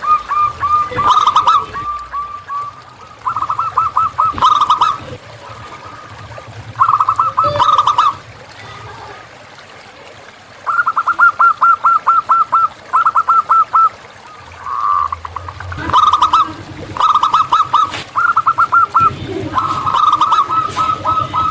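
Zebra doves (local perkutut) singing: bouts of quick, staccato cooing notes, each bout one to three seconds long, repeated every few seconds.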